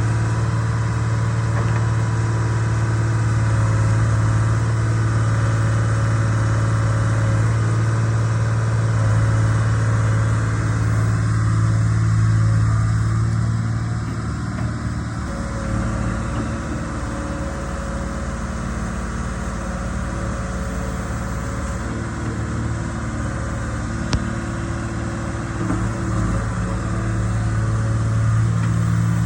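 Case 125B excavator's diesel engine running steadily under working load. It eases off a little about halfway through and picks up again near the end.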